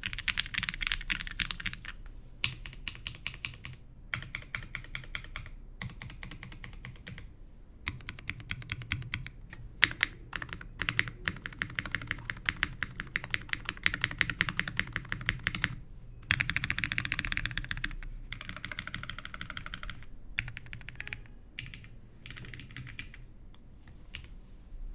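Typing on a custom mechanical keyboard with vintage Cherry MX Black linear switches on an aluminium plate and GMK keycaps: rapid keystrokes in bursts with short pauses, and a fast run of keystrokes about sixteen seconds in.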